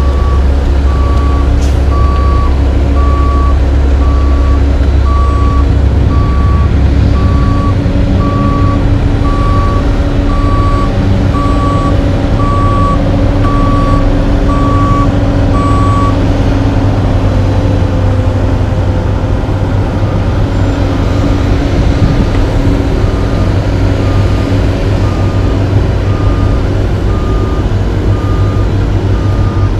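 Back-up alarm on heavy paving equipment beeping about once a second over the steady running of large diesel engines. The beeping stops just past halfway, and a fainter alarm at a slightly higher pitch carries on to the end.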